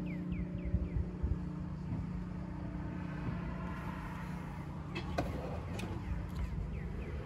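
Motor oil glugging from a plastic jug through a funnel into a truck engine, then a few sharp clicks as the jug is taken away. A steady low hum fades out about three seconds in. A bird chirps repeatedly at the start and again near the end.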